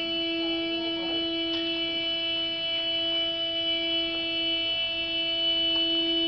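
A continuous horn tone holding one steady pitch, unbroken, with a few faint pops.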